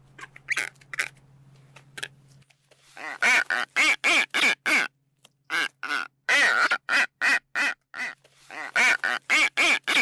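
Gull calling: a few faint calls, then from about three seconds in a rapid series of loud, short calls, about three a second, with brief pauses.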